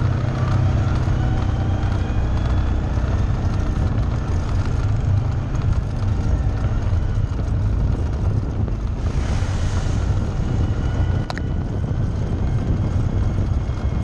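Side-by-side UTV engine running steadily as it drives along a dirt trail. About nine seconds in comes a short burst of splashing as it goes through a muddy puddle, followed by a single sharp knock.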